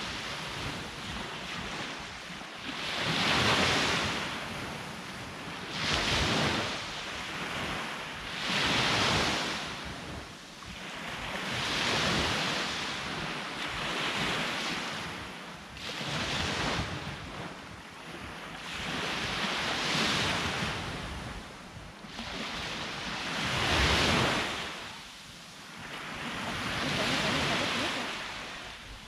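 Sea waves breaking on the shore and washing back, surging about every three to four seconds, with some wind buffeting the microphone.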